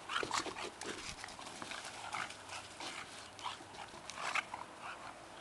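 English bulldogs making short, irregular breathing noises as they chase and scuffle over a football.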